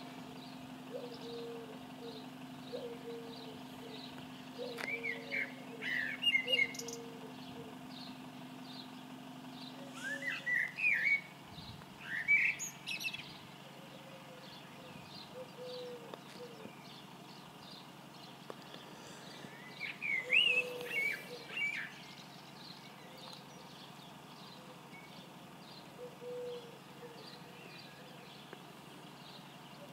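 Birds singing in short chirping bursts now and then, over a low note repeated about once a second. A steady low hum stops about ten seconds in.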